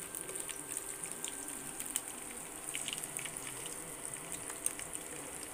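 Crab-brain fritters deep-frying in hot oil in a wok: a steady sizzle with scattered pops and crackles.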